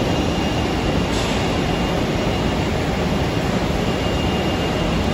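Steady factory machinery noise: a dense, even rumble with a faint high whine.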